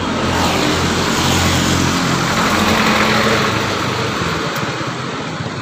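A truck passing close by on the road: engine hum and road noise grow louder, peak about halfway through, then fade.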